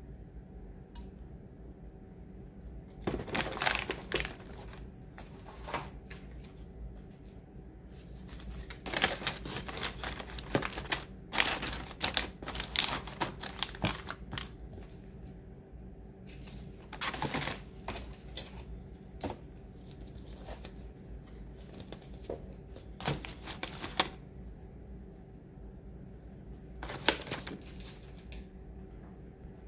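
Small packaged items being handled and packed into a cardboard box: plastic wrap and bags crinkling and rustling, with light clicks and knocks as items are set against each other, coming in irregular bursts with quiet gaps between.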